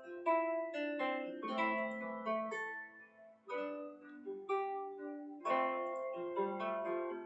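Background music: a melody of plucked-string notes, each note sounding sharply and then fading.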